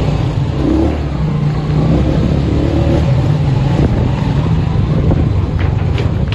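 A motor engine running steadily close by, a loud low hum.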